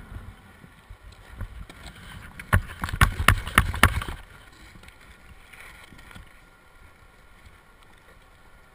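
Underwater, a scuba diver's exhaled breath bubbling out of the regulator: a rush of bubbles with rapid cracks and a low rumble from about two and a half seconds in until about four seconds, then a quieter stretch of faint steady noise.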